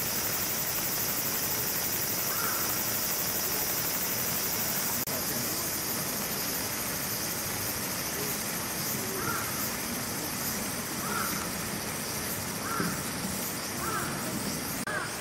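Steady hiss of heavy rain. A short call sounds once early on, then about five more come every second or two over the last six seconds.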